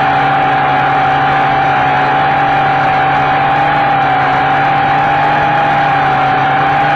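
Small quadcopter's electric motors and propellers running in flight, picked up close by its own onboard camera: a loud, steady whine that wavers slightly in pitch over a rush of propeller noise.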